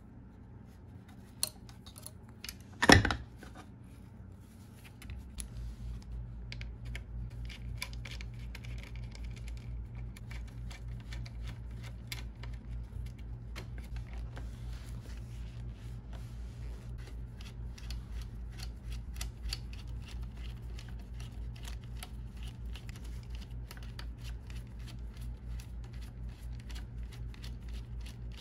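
Small metallic clicks and taps of a precision screwdriver and tiny screws being worked on a desktop computer's metal chassis, with one loud knock about three seconds in. From about five seconds on a steady low hum runs under the clicks.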